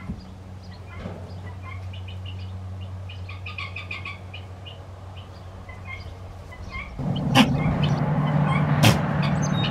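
Small birds chirping over a steady low engine hum. About seven seconds in, a louder rustling noise sets in and the hum rises in pitch, with a few sharp clicks.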